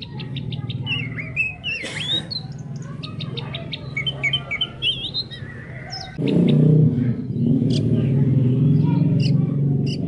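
Songbird chirping and whistling a varied song with quick rising notes, over a continuous low pulsing chorus that grows louder about six seconds in.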